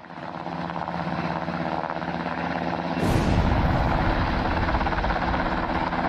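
A steady engine-like rumble, then, about three seconds in, a sudden loud explosion sound effect whose deep rumble carries on to the end.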